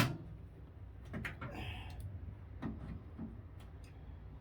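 One sharp click, then scattered small clicks and knocks and a brief scrape: hand tools working the screws on a microwave oven's casing.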